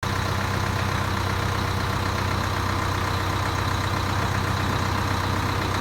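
Tractor engine running steadily with a tractor-powered three-row corn harvester working, an even, unchanging mechanical drone.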